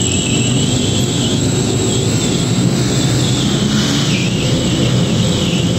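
Steady rumble of city street traffic, with no single vehicle standing out.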